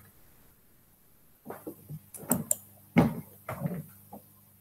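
A series of soft knocks and handling noises, starting about a second and a half in, the strongest about three seconds in.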